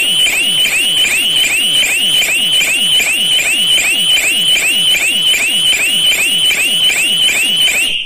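GSM shutter security siren with twin speakers sounding a loud electronic alarm: rapid rising-and-falling whoops, about three a second. It cuts off suddenly near the end, when the alarm's call is answered on the phone and 1 is pressed to deactivate it.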